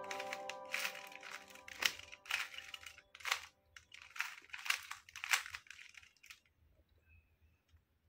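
Plastic 3x3 Rubik's cube being turned by hand: a series of quick, irregular clacks as the layers are twisted, stopping about six seconds in. Background music with held notes fades out during the first two seconds.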